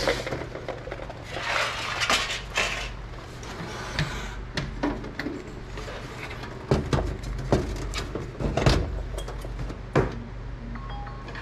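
Irregular clicks, knocks and clinks of hands handling a desktop computer and its cables, with a run of sharper knocks in the second half.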